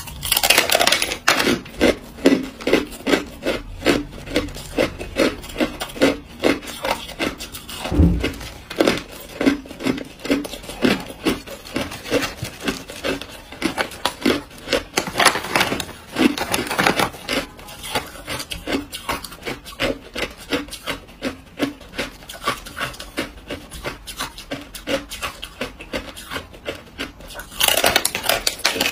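Hard clear ice being bitten and crunched in the mouth close to the microphone: a fast run of sharp crunches, several each second, with a low thud about eight seconds in.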